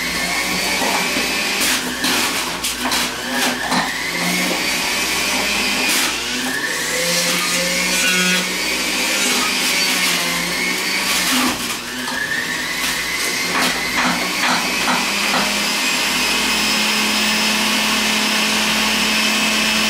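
Centrifugal juicer motor running as produce is pushed down its chute with the pusher, with sharp clatters as pieces hit the spinning cutter disc. Three times the motor's whine rises in pitch as it speeds back up after a piece has been ground through.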